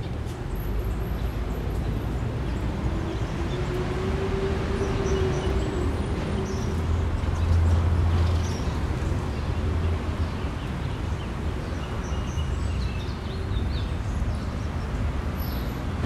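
City park ambience: a steady hum of traffic from the surrounding streets, swelling as a vehicle passes about halfway through, with scattered bird chirps that come more often near the end.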